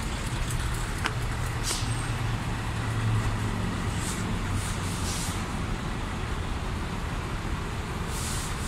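Heavy diesel truck engine idling steadily, with a few short hisses.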